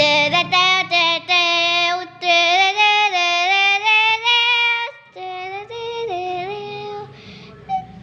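A high voice singing a melody in long held notes, softer from about five seconds in.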